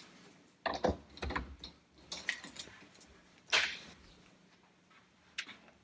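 Handling noises on a workbench as power leads and connectors are handled and plugged in: a few knocks and clicks about a second in, a short rustling scrape past the midpoint, and a single click near the end.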